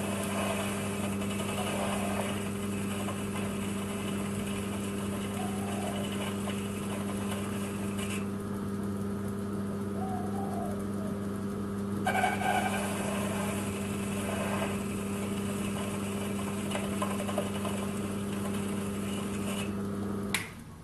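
Small belt-driven metal lathe running steadily, its electric motor humming. It is switched off and stops abruptly near the end.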